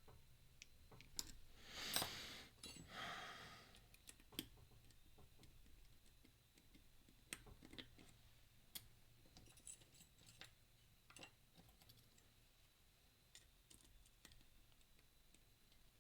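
Faint, scattered small clicks of a pick and tensioner working the discs of a flat pagoda disc-lock padlock, with a brief scraping rustle about two seconds in and again just after.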